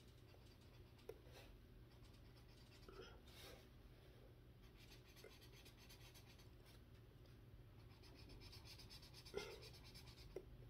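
Faint scratching of a felt-tip marker coloring on a paper page, with a few soft taps, the sharpest about nine seconds in.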